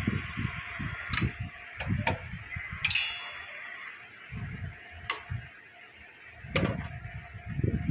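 Scattered sharp metallic clicks and taps, one about three seconds in ringing briefly, over an uneven low rumble: a screwdriver and metal parts being handled on an inverter's circuit board and steel chassis.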